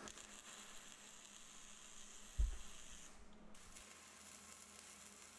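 Stick-welding arc sizzling and hissing as a bead is laid on the steel holder. The sizzle drops out briefly just after three seconds in and then goes on more softly; a single dull thump sounds about two and a half seconds in.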